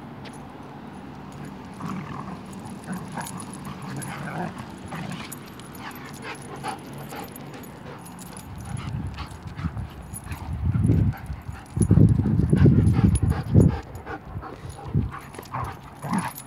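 Two dogs, one a young German Shepherd, play-fighting: scattered yips and short noises, then a run of loud, deep growls and snarls from about ten and a half to fourteen seconds in.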